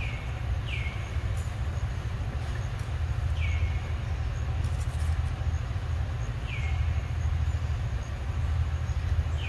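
A steady low rumble throughout. Over it, a short high chirp that falls in pitch comes every few seconds: twice close together at the start, then about every three seconds.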